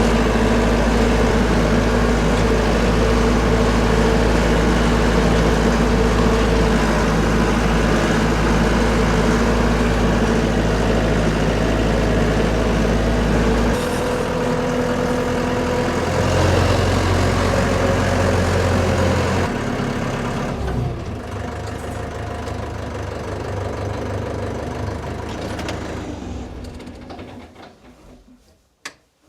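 An engine running steadily with a low, even drone. Its note changes a couple of times before it dies away near the end, and a single sharp click follows.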